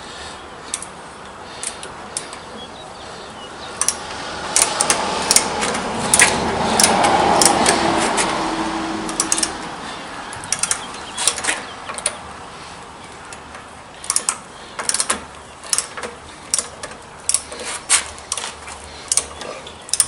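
Irregular mechanical clicking and ratcheting. A rush of noise swells through the middle and fades again.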